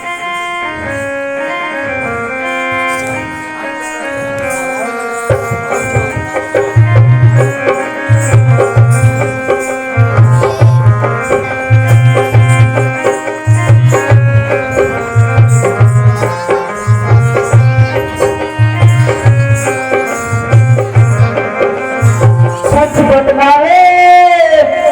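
Instrumental music: a held melody of slowly changing sustained notes, joined about five seconds in by a steady low drum beat with a tabla-like sound. Near the end a sliding, voice-like pitch rises and falls over the music.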